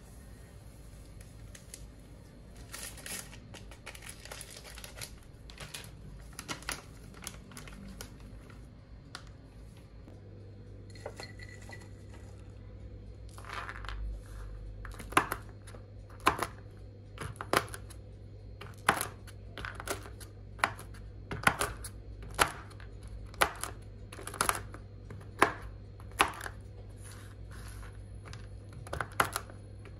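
Light clicks and rattles, then a run of sharp knocks about one a second in the second half, over a low steady hum.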